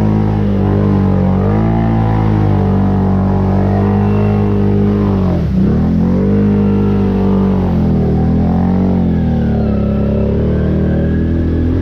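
ATV engine running under throttle, its pitch rising and falling. About halfway through the pitch drops sharply as the throttle is let off, then climbs back.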